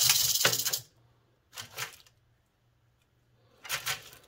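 Rattlesnake's tail rattle buzzing loudly, the warning buzz, cutting off suddenly about a second in. Two short, quieter scratchy rustles follow a couple of seconds apart.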